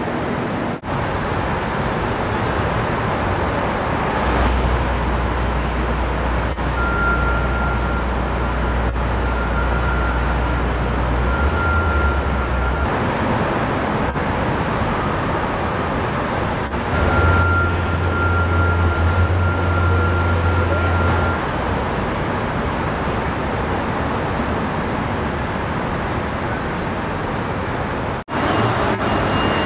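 Steady city street traffic noise, a continuous rush, with a low engine drone that comes in twice for several seconds each.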